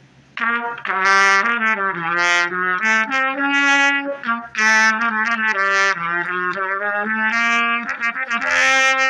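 Unaccompanied trumpet improvising a phrase of many changing notes, some short and some held, starting about half a second in.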